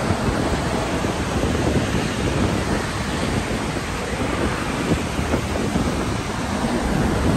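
Multnomah Falls running high after heavy rain: a steady rush of falling water.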